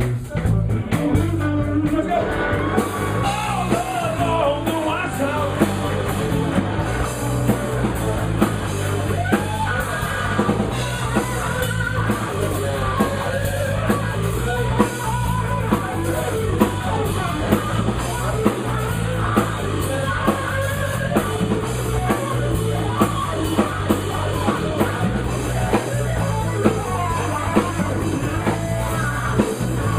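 Live rock band playing: a drum kit keeping a steady beat under electric guitar and bass, with no lead vocal line.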